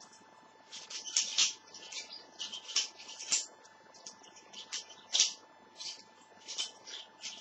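Balisong (butterfly knife) being flipped: irregular metallic clicks and short rattling clatters as the handles swing around the pivots and knock together, a dozen or so in quick succession.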